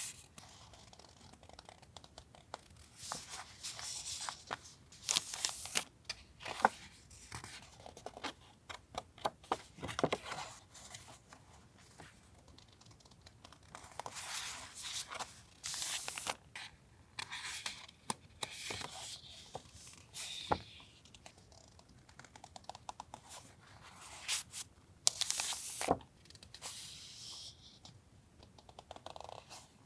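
Hands unpacking stationery: paper and plastic packaging rustling, crinkling and tearing in irregular bursts, with small sharp clicks and taps.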